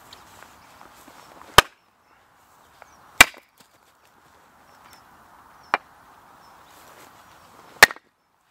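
Axe splitting firewood logs on a wooden chopping block: four sharp chops spaced a couple of seconds apart, the third one lighter.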